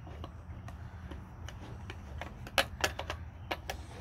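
Small plastic doll parts and accessories being handled and fitted, a scattered string of light clicks and taps with a few sharper ones in the second half, over a steady low rumble.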